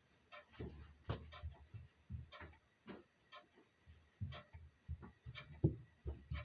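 Clock ticking at about one tick a second, with irregular low thuds mixed in among the ticks.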